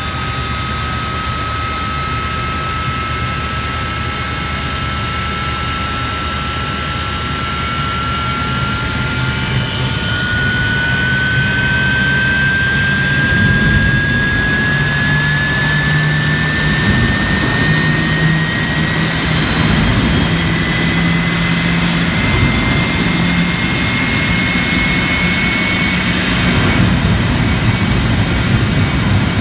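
Jet engine on a show truck running up, its whine climbing slowly and steadily in pitch. About halfway through, a heavy low roar joins in and the sound gets louder as flame blasts from the exhaust onto a junk car.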